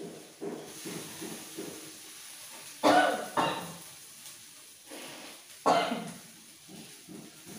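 A person sneezing: two sharp sneezes in quick succession about three seconds in and a third just before six seconds, with softer breathy sounds between, set off by the fumes of frying chillies.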